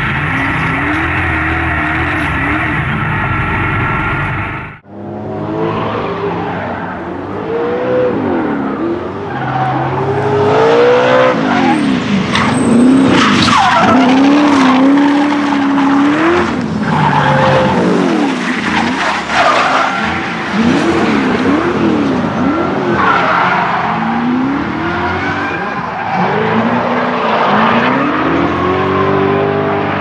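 Modified Chevrolet LS1 V8, about 600 hp, in a BMW E36 drift car. For the first five seconds it runs at nearly steady revs, heard from inside the cabin. After a cut it is heard from trackside, revs rising and falling again and again as the car drifts, with the rear tyres skidding and squealing in clouds of smoke.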